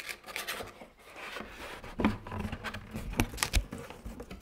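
Corrugated cardboard being folded and handled by hand: flaps creased and tabs pushed into place, with scraping rustles and clicks throughout and a few dull knocks, the loudest about two seconds in and around three and a half seconds.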